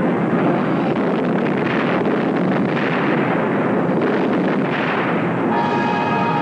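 Film sound effect of a long, rumbling explosion. Orchestral music comes in over it about five and a half seconds in.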